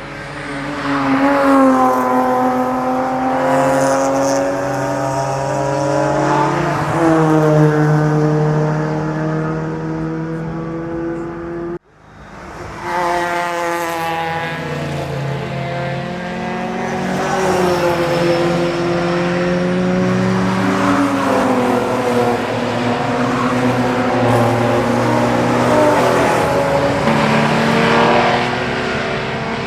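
Historic racing cars' engines at full throttle on a circuit, the pitch climbing through the revs and dropping back at each gear change as cars go by. The sound breaks off briefly about twelve seconds in, then picks up again.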